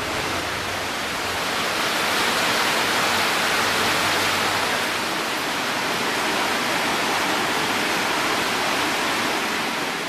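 Water of the Leimbach stream rushing and splashing down the channel beneath an old wooden water wheel, a loud, steady rush.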